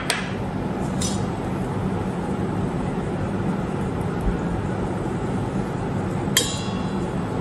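Metal mesh sieve knocking against a stainless steel mixing bowl while flour is sifted: three sharp metallic clinks, at the start, about a second in and near the end, the last one ringing. A steady low hum and hiss runs underneath.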